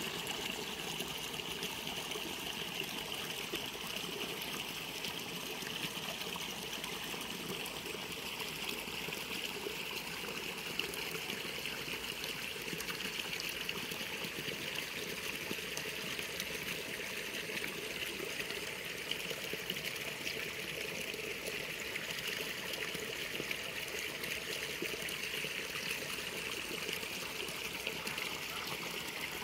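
Water trickling steadily in a roadside irrigation ditch, an even, unbroken sound.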